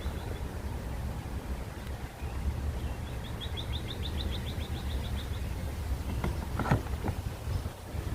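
Outdoor background with a steady low rumble, over which a bird gives a rapid trill of evenly repeated high chirps for about two seconds midway. A single short knock comes near the end.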